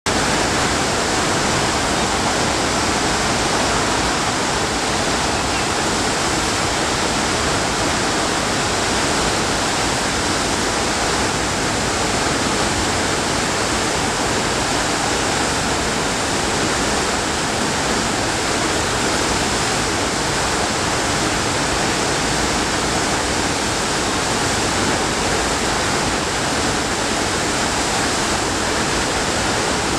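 Steady, loud rushing of water from a FlowRider sheet-wave machine: a thin, fast sheet of water pumped up a padded incline. The rush keeps up evenly throughout.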